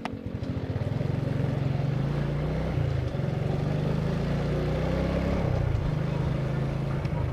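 Motor scooter engine pulling away from a stop, building up over the first second, then running steadily as it rides along. The engine note dips briefly twice, as the throttle is eased.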